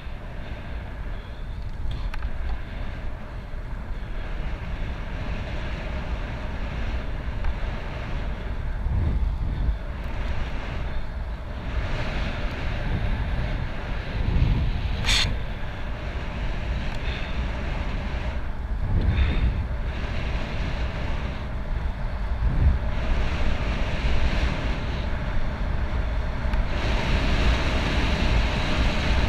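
Wind buffeting the microphone of a camera on a road bicycle riding along an asphalt road. There is a sharp click about halfway through, and the wind noise grows louder in the last few seconds.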